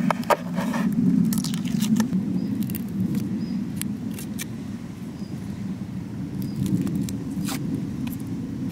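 Short clicks and taps of a steel knife cutting and peeling garlic cloves on a wooden cutting board, a cluster in the first two seconds and a few more later, over a steady low rumble.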